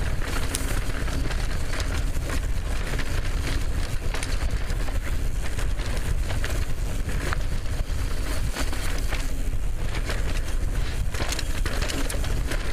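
Mountain bike ridden fast down a chunky dirt singletrack: steady wind rush over the helmet microphone, with constant rattling and clattering of the bike and tyres over rocks and ruts.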